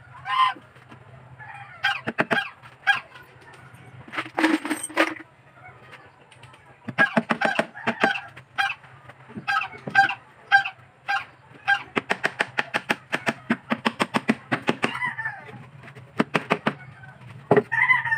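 A hammer driving nails into a plywood speaker box, in quick runs of sharp strikes, each with a short metallic ring. A chicken clucks near the end.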